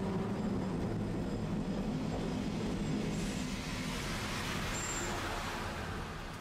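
Tosaden streetcar running: a steady low hum and rumble, with a brief high-pitched tone about five seconds in.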